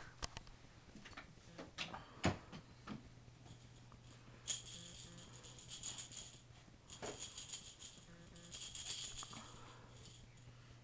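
A few light knocks and taps, then, from about four seconds in, a baby's toy jingling in repeated shaken bursts, like small bells in a rattle.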